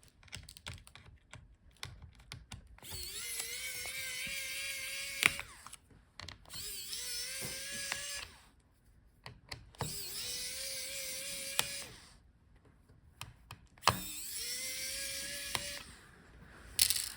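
Small electric screwdriver backing out the laptop's heatsink screws: four runs of about two seconds each, the motor whine rising as it spins up and then holding steady before stopping. Light clicks and taps of the bit and screws come between the runs.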